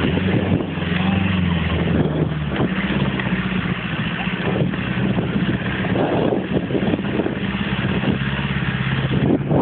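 Off-road vehicle engine running, its pitch shifting slightly now and then, over a steady rushing noise.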